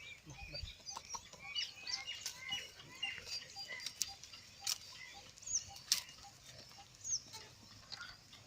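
Birds chirping and calling in many short notes throughout, with a few sharp clicks.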